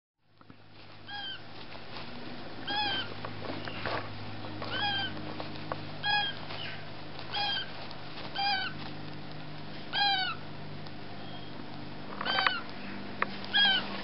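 Meyer's parrot chicks, 7 to 10 days old, giving short begging calls, each rising then falling in pitch, about one every second and a half, over a steady low hum.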